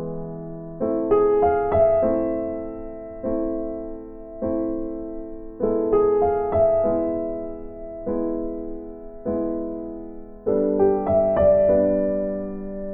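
Slow piano music: soft chords with a melody on top, each note struck and fading away, a new group of notes about every one to two seconds.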